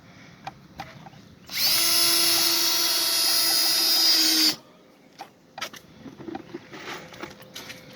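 Power drill spinning up and running at a steady pitch for about three seconds, then stopping abruptly, as a screw is driven to fasten a brace. A few light knocks and clicks come before and after.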